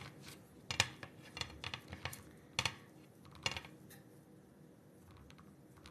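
Kitchen utensils clinking and scraping against dishes while cookie dough is scooped and portioned into balls: several short, sharp clinks over the first three and a half seconds, then only faint handling.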